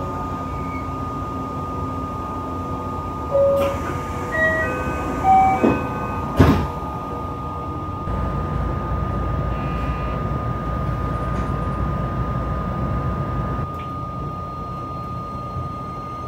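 Electric commuter train standing at a station: a short run of chime tones at stepping pitches, then two knocks as the sliding doors close about six seconds in, over a steady hum from the train's equipment. A lower rumble follows.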